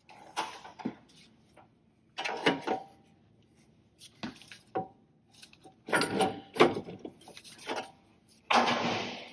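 Intermittent metal clanks, knocks and scrapes as a front strut assembly is worked into place by hand in a truck's front suspension, with a longer scraping sound near the end.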